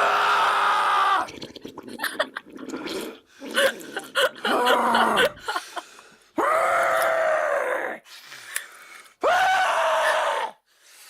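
Constipation sound effect: a person's drawn-out straining groans. There are three long groans of about a second each, each dropping in pitch at the start and then holding. Choppy grunting and straining noises fill the gap between the first two.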